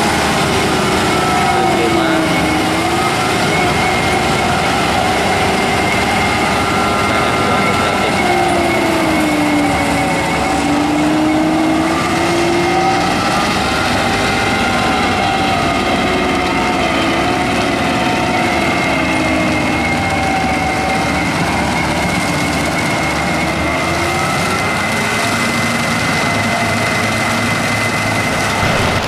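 Tractor of over 150 HP running steadily under load, pulling a FAE CH-45 stripe tiller whose rotor churns through the soil. The engine pitch wavers slowly up and down over a dense steady noise with a constant high whine.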